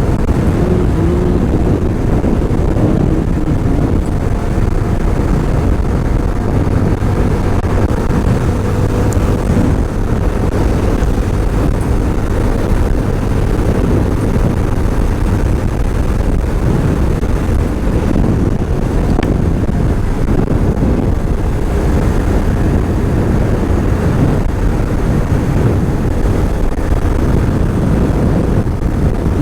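Motorcycle riding at highway speed: steady engine, road and wind noise, picked up by a helmet-mounted camera microphone.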